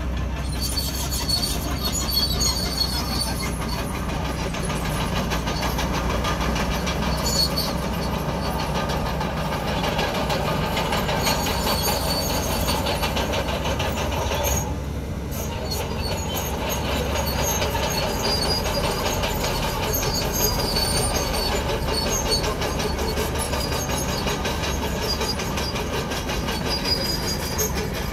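Crawler bulldozer working, its steel tracks clanking and squealing over a steady diesel engine drone, with a short lull about halfway through.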